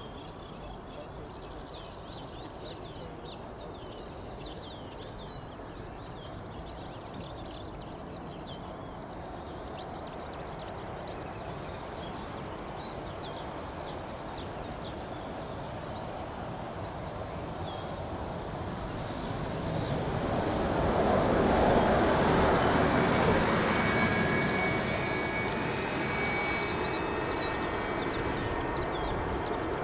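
Airbus A380-800's four jet engines on final approach: a distant rumble that grows louder, with a faint whine toward the end. Small birds chirp over it in the first third. The noise swells to its loudest about two-thirds of the way in, then eases a little.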